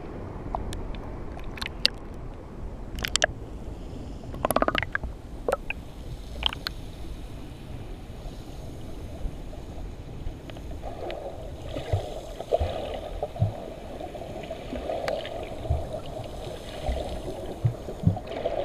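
Seawater sloshing and splashing with sharp clicks in the first several seconds. Then a muffled, steady underwater wash of the sea, heard from below the surface, with soft low knocks.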